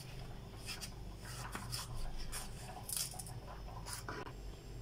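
Kitchen knife slicing carrot into thin strips on a plastic cutting board: a faint, irregular series of short taps and scrapes, a couple to a few each second.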